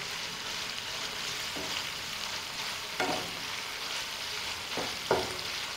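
Chicken mince sizzling in oil in a nonstick frying pan as it is stir-fried with spices, a spatula turning and scraping it, with a few short, louder strokes.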